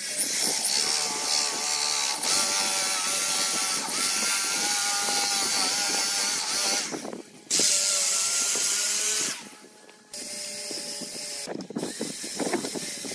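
Corded electric drill with a Forstner-type cup bit boring a concealed-hinge cup hole into pine, its motor whining steadily under load. It stops about 7 seconds in, runs again briefly and stops about 9.5 seconds in; a few sharp clicks follow near the end as the metal hinge is set into the hole.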